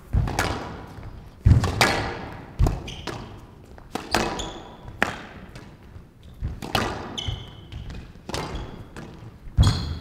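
Squash rally on a glass court: the ball being struck by rackets and thudding off the walls and glass every half second to a second. There are two short squeaks along the way, and a louder hit near the end.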